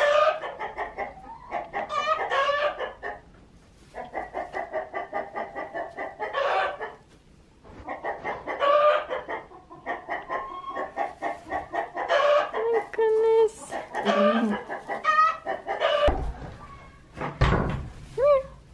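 Chickens clucking and calling over and over, with a couple of dull thumps near the end.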